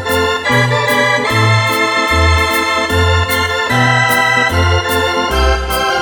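Yamaha arranger keyboard playing a song with an organ voice: held chords over a moving bass line, with a steady beat ticking along on top.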